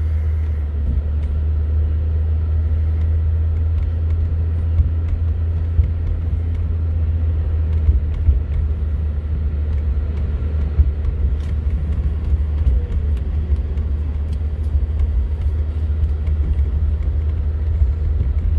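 Inside the cabin of a 1989 Mercedes 300SE driving along: a steady low rumble of its straight-six engine and the road. A few faint clicks and knocks come through, the light clatter that sounds like worn suspension bushings.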